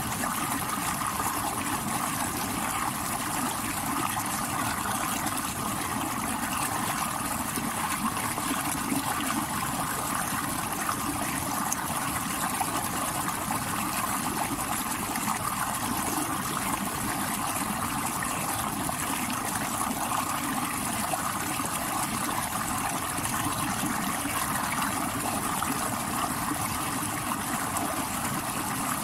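Stream water rushing over rocks in a steady, even rush with no breaks.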